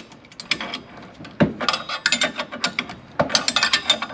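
A 7/8-inch box-end wrench turning a nut on a long bolt used as a puller, with groups of quick metallic clicks and clinks, as the bolt draws an old bushing out of a gyrocopter rotorhead.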